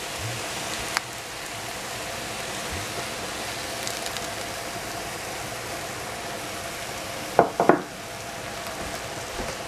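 Sliced onions frying in oil in a pan over high heat, with a steady sizzle. A single click comes about a second in, and two brief pitched calls come about seven and a half seconds in.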